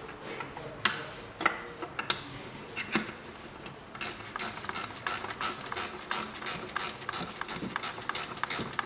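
Ratchet wrench with a 12 mm socket undoing a manifold stay bolt: a few separate metal clicks and knocks as it is fitted, then fast, even ratchet clicking, about four a second, from about four seconds in.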